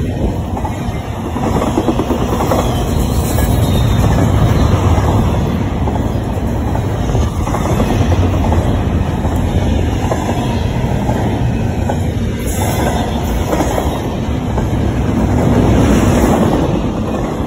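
CSX intermodal freight train's double-stack container cars rolling past close by: a loud, steady rumble of steel wheels on the rails, with a rapid clatter of wheels clicking over the rail joints.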